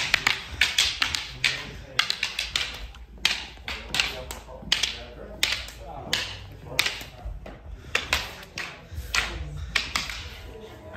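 Eskrima sticks, rattan, clacking against each other in partner-drill strikes: a quick, irregular run of sharp wooden clacks, a few a second, with a brief pause about three seconds in.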